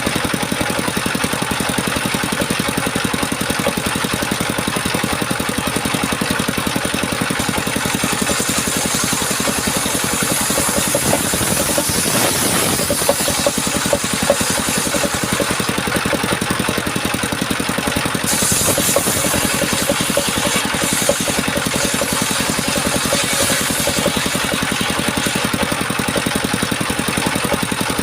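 Engine driving a homemade circular-saw sawmill, running steadily with rapid, even firing pulses. A high hiss swells and fades twice over the top of it.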